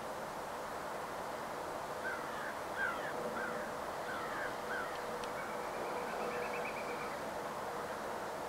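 A small bird calling: a string of short chirps, then a fast trill a little past halfway, over a steady outdoor hiss.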